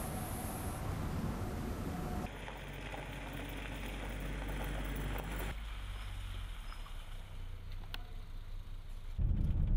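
Vehicle driving on a wet, slushy road: a low engine hum under the hiss of tyres through slush. The ambience changes suddenly twice, with a single click near the end.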